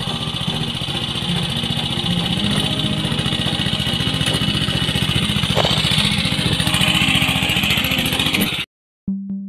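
Small air-cooled engine of a walk-behind rice transplanter running steadily under load as the machine plants seedlings through a flooded paddy. It cuts off abruptly near the end.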